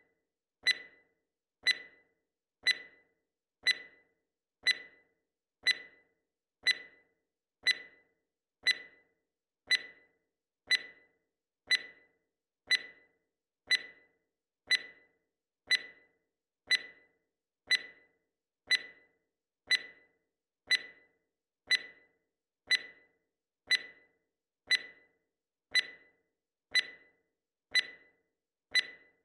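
Countdown timer sound effect: a short, sharp clock-like tick once every second, each dying away quickly, with silence between ticks.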